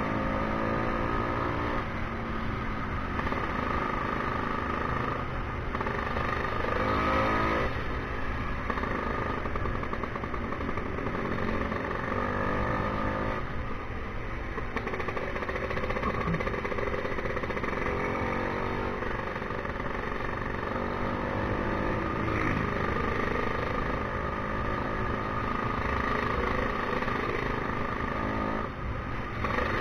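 Tuned-up Vespa scooter engine under way, repeatedly accelerating: the pitch climbs, then drops back at each gear change, several times over, above a steady low rumble.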